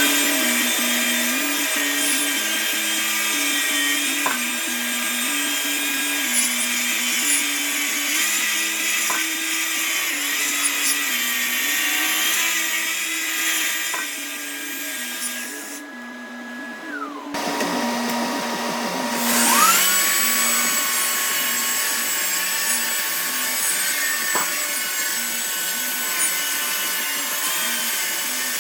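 Festool RenoFix renovation grinder running with a steady high whine and a hiss. It spins up at the start, shuts off about sixteen seconds in, and spins up again a few seconds later.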